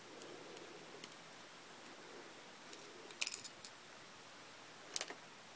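Small metal parts of a metal construction toy set clicking and clinking together as they are handled and fitted by hand: faint ticks at first, a quick cluster of clicks about three seconds in and another near the end.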